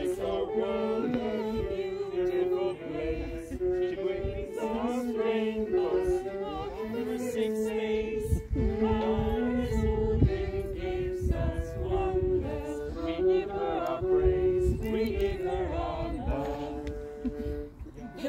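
A group of people singing a slow song a cappella, with held notes and no instruments.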